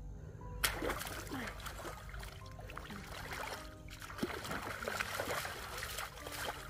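Hands splashing and sloshing in shallow, muddy paddy water, starting suddenly under a second in and going on in irregular splashes, over soft background music.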